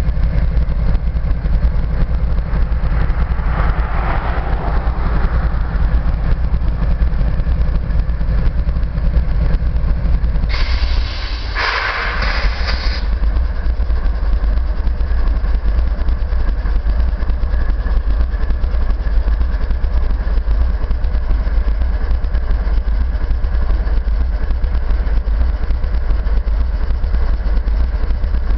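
Diesel engines of a pair of GE locomotives, an ES44AC and an AC4400CW, running at idle with a steady low rumble. About ten seconds in, a loud hiss lasts two to three seconds, and the engine note drops at the same moment.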